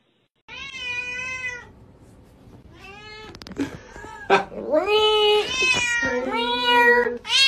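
Cat meowing in a series of long, drawn-out yowls that bend up and down in pitch. The calls get louder and come closer together from about halfway through.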